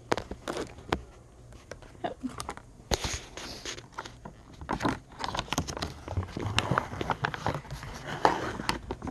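A person chewing a mouthful of instant yakisoba noodles, with many small irregular clicks and mouth noises close to the microphone.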